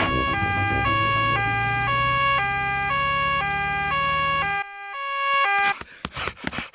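Cartoon sound effect of a doctor's car arriving with a two-tone siren that alternates between a high and a low note about once every half second, over a low engine hum. The hum stops about four and a half seconds in and the siren about a second later, followed by a few short knocks.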